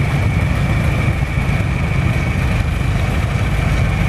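1964 John Deere 3020 tractor's four-cylinder engine running steadily as the tractor drives slowly past, a low, even engine sound.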